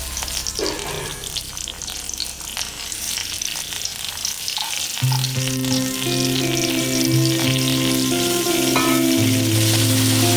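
Food sizzling and crackling as it fries in hot oil in a pan, with background music coming in about halfway through.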